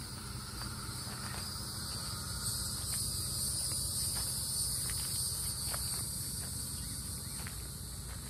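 A steady, high-pitched chorus of insects, swelling louder for a few seconds in the middle, with light footsteps.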